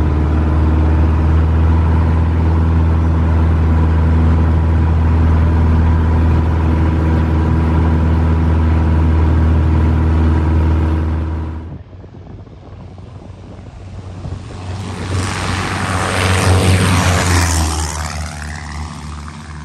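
Zenith Zodiac 601 light sport airplane's single propeller engine at takeoff power, a loud steady drone heard from inside the open-canopy cockpit on the takeoff roll. About twelve seconds in, the sound cuts to the plane heard from the ground: it grows louder as it flies low past, then falls in pitch as it goes away.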